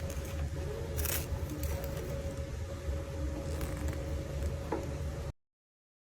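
Light clicks and scrapes of kitchen utensils and dishes being handled, a few separate knocks over a steady low hum. The sound cuts off suddenly about five seconds in.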